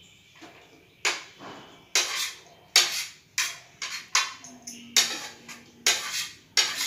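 A utensil scraping and knocking against a ceramic plate as chopped vegetables are pushed off it into a bowl: a run of short, sharp clinks and scrapes, roughly two a second, starting about a second in.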